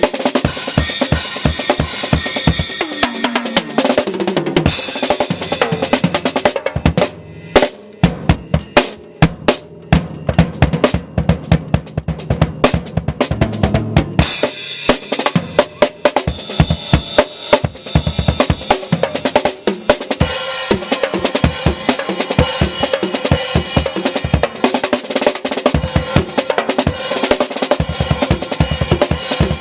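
Acoustic drum kit played solo: fast kick drum, snare and tom patterns under ringing cymbals. About seven seconds in the cymbals drop out and separate, sharp drum hits carry on, and the cymbals come back about halfway through.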